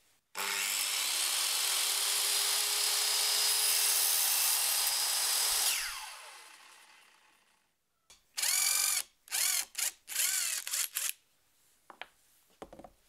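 Circular saw running through a cut in a wood sheet, then spinning down with a falling whine once released. A few seconds later a handheld power drill runs in several short bursts, its pitch rising and falling with each.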